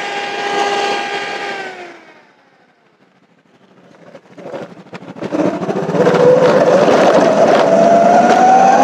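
Ather 450X electric scooter's drivetrain whining: a steady whine that drops in pitch and dies away about two seconds in, a moment of near quiet, then the whine climbing steadily in pitch over road noise as the scooter picks up speed again.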